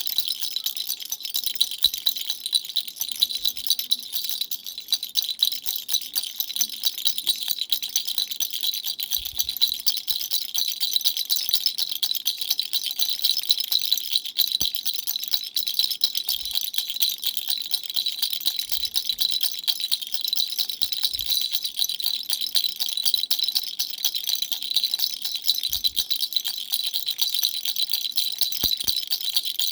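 Dumbbell-shaped baby rattle shaken steadily without pause: a dense, high-pitched rattle of many small clicks.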